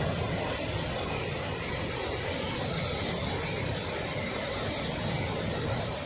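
Large waterfall in spate, muddy floodwater pouring over a broad rock ledge in several falls: a steady, unbroken rush of falling water.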